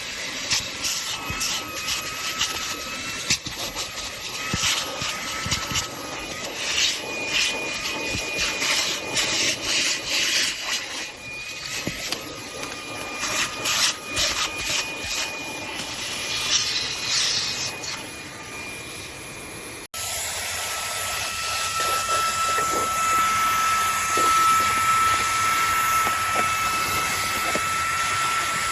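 Cordless handheld vacuum running with a steady motor whine, crackling and rattling as grit is sucked up through the nozzle. About two-thirds through, the sound cuts off, and the motor then runs on alone, steadier and louder.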